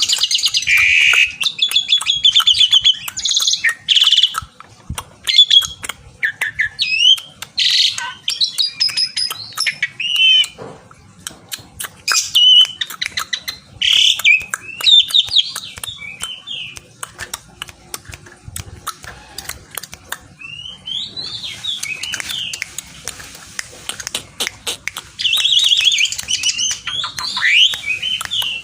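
Asian pied starling (jalak suren) singing a long varied song of whistles, rapid chattering phrases and sharp clicks, in bursts with short pauses. This is the full, vigorous song that keepers call gacor, given as a challenge to a rival.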